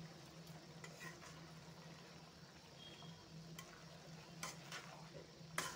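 Metal spoon stirring and scraping in an aluminium kadhai of potatoes and spring onion greens, with a faint sizzle underneath. There are a few light taps early on, and sharper knocks of the spoon on the pan come in the last second and a half, the loudest just before the end.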